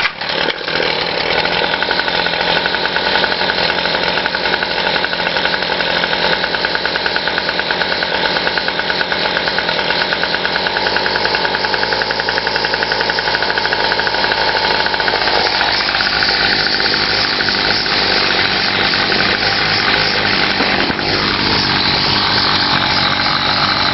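Weed Eater Featherlite string trimmer's small two-stroke engine catching about half a second in on a cold start and running steadily.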